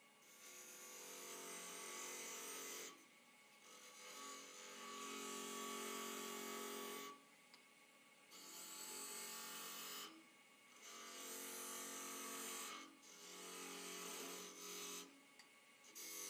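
Turning chisel cutting a spinning wooden spindle on a lathe, with shavings coming off. The cutting comes in about six passes of one to three seconds each, with short pauses between.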